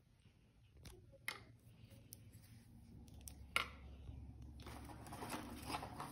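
Chocolate wafers being handled and set on a ceramic plate: a few light clicks and taps, the sharpest a little past halfway, then a rustling near the end as the hand reaches into the wafer box.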